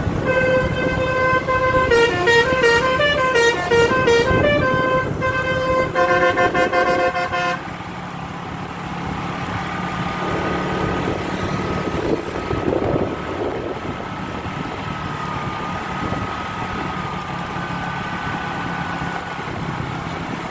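Bus telolet (basuri) multi-tone air horn playing a quick melody, its notes switching back and forth, for about seven and a half seconds, then cutting off. A quieter steady engine rumble remains.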